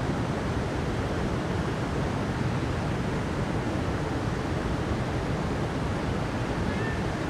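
Steady rush of falling or flowing water, a mountain river or waterfall, an even roar that is heaviest in the low range.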